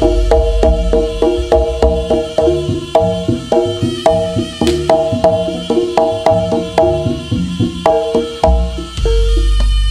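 Jaranan gamelan music: a fast, evenly repeating pattern of struck tuned percussion over drumming. A deep sustained bass comes in near the end.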